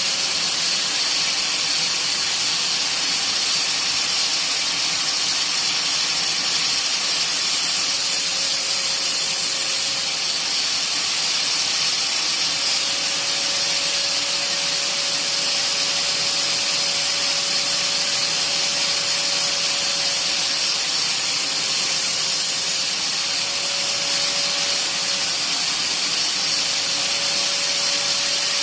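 Grinder running steadily while a TIG tungsten electrode is held in an angled guide and spun against it, sharpening a point that was contaminated by touching the weld puddle. A steady, loud hiss, with a faint hum that comes and goes.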